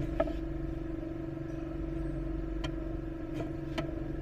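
Steady mechanical hum with a few faint, scattered clicks.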